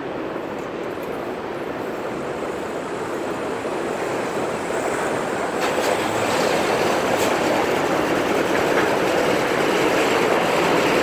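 A steady rushing noise that grows gradually louder, with a few faint clicks about halfway through.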